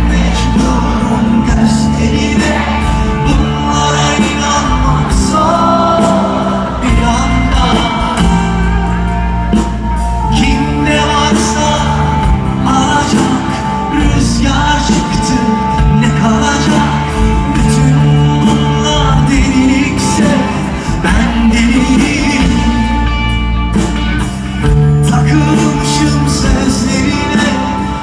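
Live pop-rock band playing with a male lead singer, with drums, bass and guitars, heard from the audience.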